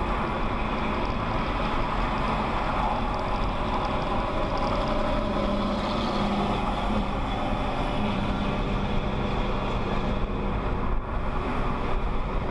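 Car driving at freeway speed, heard from inside the cabin: steady tyre and wind noise with a low, even hum underneath.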